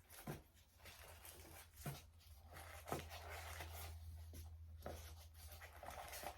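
Faint rustling of packaging being handled, with a few soft knocks, over a low steady hum.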